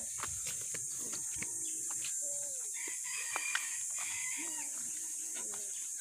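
Roosters and chickens calling: several short crows and clucks that bend up and down in pitch, over a steady high-pitched hiss.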